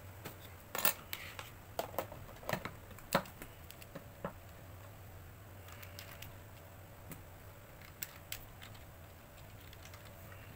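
Irregular sharp clicks and light knocks from small items, a metal binder clip among them, being handled and set down on a paper trimmer's board. The clicks come mostly in the first four seconds, with two more about eight seconds in.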